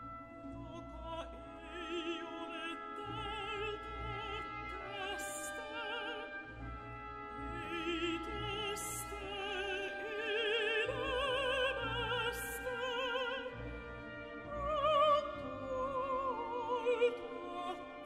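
A mezzo-soprano sings a Finnish text with a wide vibrato over a soft orchestral accompaniment. A few sharp hissing consonants break her held notes.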